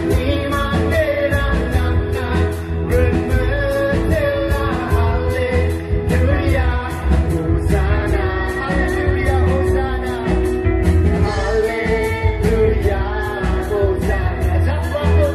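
Live gospel band playing a praise and worship song: a male lead singer with a woman singing along, over drum kit, electric bass, acoustic guitars and keyboard, with a steady drum beat.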